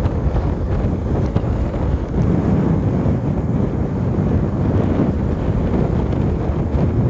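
Wind buffeting the microphone of a moving motorcycle: a steady low rushing rumble, with the bike's running noise underneath.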